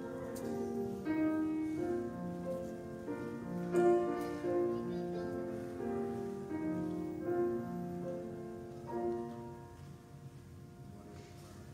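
Keyboard instrument playing slow, held chords, the instrumental close of a hymn after the singing has stopped, dying away about nine to ten seconds in.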